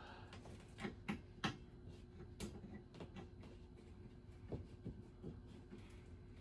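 Scattered light clicks and taps of small ceiling fan parts and hardware being handled during assembly, strongest about a second to two and a half seconds in.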